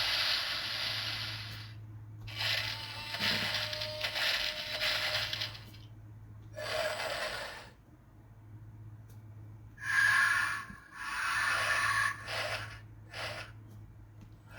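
Recorded dinosaur sound effects played through a sound book's small speaker: several noisy, breathy bursts of a second or two each, the loudest about ten seconds in, over a steady low hum.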